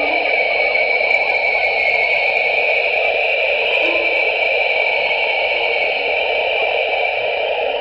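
NASA sonification of a Southern Ring Nebula image: a steady synthesized hiss-like drone in two bands, a middle one and a higher one carrying a held high tone.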